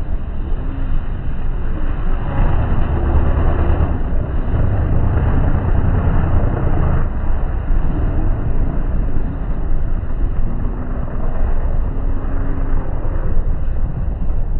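Dirt-track race car engines running on the oval: a loud, continuous engine drone that grows louder at times as cars go by.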